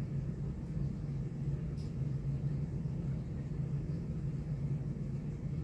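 Steady low hum and rumble of background machinery, with one faint click about two seconds in.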